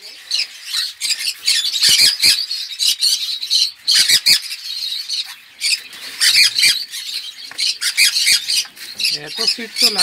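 Many caged birds squawking and chattering in a dense, continuous high-pitched din, with a few sharp clicks about two seconds in and again around four seconds.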